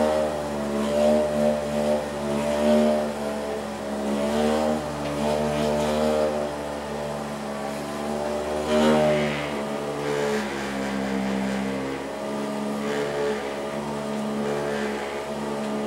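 Electric massager running with a steady motor hum, its pitch wavering slightly now and then.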